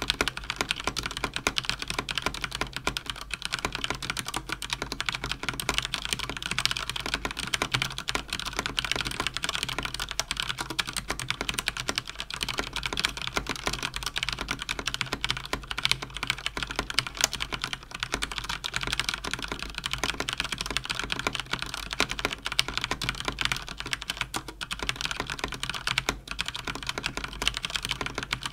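Fast, continuous typing on a mechanical keyboard with Cherry MX Speed linear switches: a dense, even stream of key clicks and bottoming-out clacks at about 110 words per minute.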